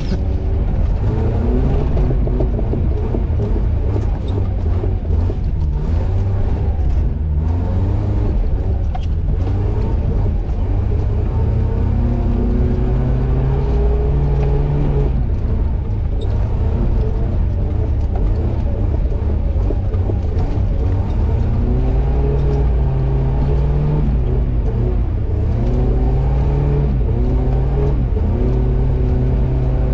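Four-wheel-drive vehicle's engine pulling hard through soft sand in four-wheel-drive low, second gear, the throttle held down to keep momentum. Its pitch rises and falls several times over a steady low rumble, heard from inside the cab.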